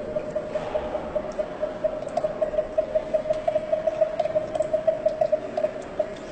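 Ceramic water whistle blown while being tilted, one steady note warbling about five or six times a second like a bird's trill. It stops shortly before the end.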